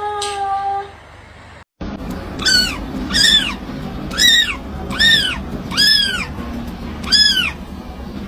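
A held steady note ends about a second in. After a short break, a kitten mews over and over, each high mew rising and falling, about one a second.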